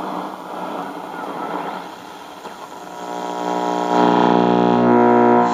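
Radio Shack 12-795 multiband receiver on the AM broadcast band being tuned: faint station audio in static, then about three seconds in a steady buzzing tone with many overtones rises and becomes the loudest sound.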